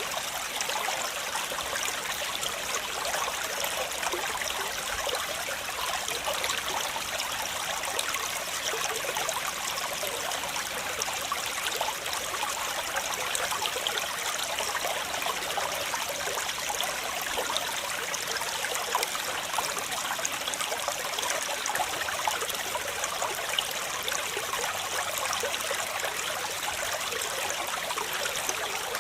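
Steady rush and splash of a waterfall, its water falling and running over rocks.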